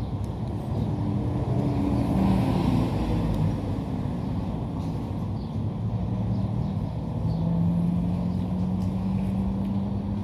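Steady low motor rumble with a hum that shifts slightly in pitch, settling lower and steadier about two thirds of the way in.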